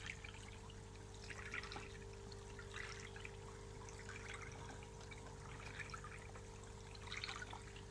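Faint trickling and splashing of water in a small koi fry pond, over a steady low hum.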